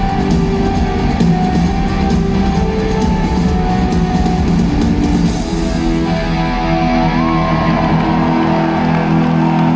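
Live rock band playing through an arena PA, electric guitars over bass and drums, recorded from the audience.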